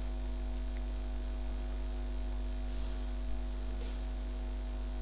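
Steady electrical mains hum with a faint, fast, even ticking of interference: the recording's own background noise.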